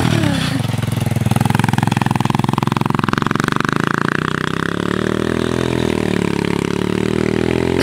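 Small Chinese dirt bike engine revving under load as the rear tyre spins in mud on a grassy slope. The pitch rises over the first few seconds, then holds steady.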